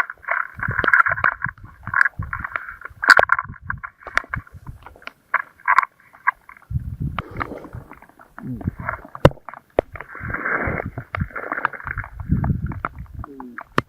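Rustling and crinkling of synthetic clothing and bedding as a person shifts about lying on the ice, in irregular bursts, with sharp handling clicks and low rumbles.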